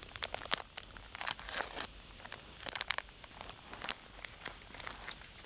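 Instant soup packet crinkling and tearing as it is opened by hand, with scattered sharp crackles from a small wood campfire.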